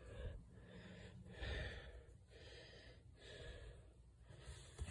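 Faint breathing close to the microphone, soft airy breaths in and out about once a second, with a couple of soft low bumps.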